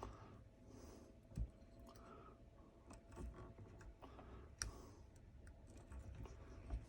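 Hand carving tool working a wooden rifle stock: faint clicks and scrapes with three sharp taps, roughly every two to three seconds.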